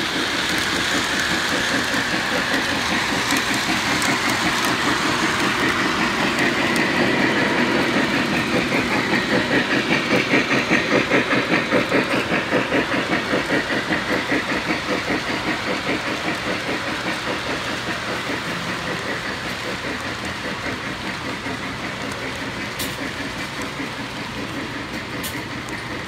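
Model Polar Express steam locomotive No. 1225 and its passenger cars running on three-rail O-gauge track: a fast rhythmic clatter over a steady hiss, louder about halfway through and then slowly fading as the train moves away.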